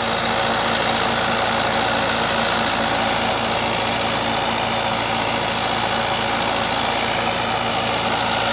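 Mahindra 575 DI XP tractor's four-cylinder diesel engine running steadily under load, driving a rotavator that is sunk into the soil.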